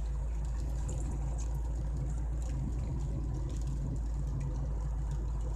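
Chevrolet Celta's engine and road noise heard from inside the cabin while driving, a steady low drone with no change in pace.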